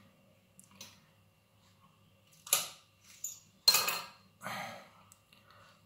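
Kitchen knife chopping a chilli pepper: a few sharp knocks and short scrapes of the blade, the first about two and a half seconds in and more around four seconds in.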